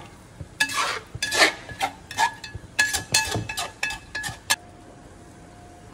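A metal spatula stirring thick chicken masala in a large aluminium pot, scraping and knocking against the pot's sides so that it rings with each strike. The clinks and scrapes come in an irregular run and stop about four and a half seconds in.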